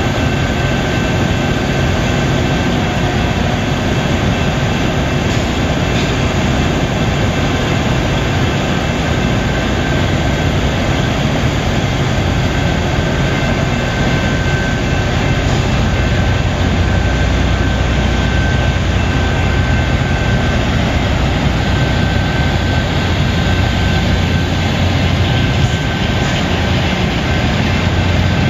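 LORAM rail grinder train running slowly past, its machinery making a loud, steady noise: a low rumble under a dense hiss, with a faint steady high whine.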